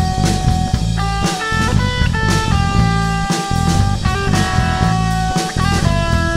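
Background rock music with electric guitar and a drum kit keeping a steady beat, the guitar holding notes that change every half second or so.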